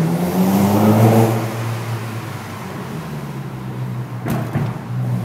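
Car engine heard from inside the cabin, revving up under hard acceleration in the first second or so, then easing to a steadier, lower drone. A single sharp knock about four seconds in, and the engine pulls harder again near the end.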